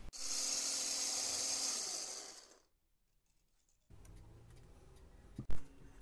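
Powdered sugar poured from one glass into another: a steady hiss that fades out about two and a half seconds in. After a dead-silent gap, faint room noise and one sharp click.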